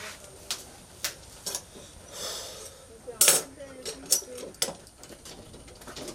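Irregular sharp metallic clicks and clinks as a tailor handles his hand-operated sewing machine and tools, the loudest a little over three seconds in, with a short rustle of cloth about two seconds in.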